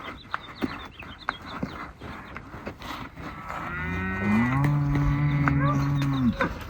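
Cattle mooing: one long, low moo that rises at first, holds steady for about three seconds and stops abruptly near the end.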